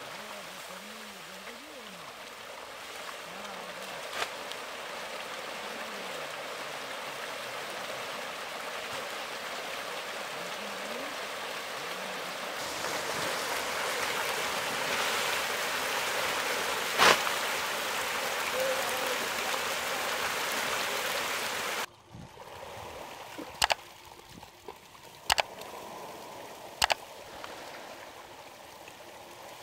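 Hybrid magur catfish thrashing at the pond surface as feed pellets pour in: a steady splashing hiss much like running water, loudest in the middle with a sharp knock. After a sudden drop about two-thirds in it goes quieter, with three sharp clicks.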